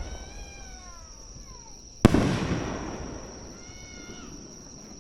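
A fireworks shell bursts with a sharp bang about two seconds in and rumbles away over a second or so. Before and after it come high, downward-sliding cries from spectators reacting to the bursts.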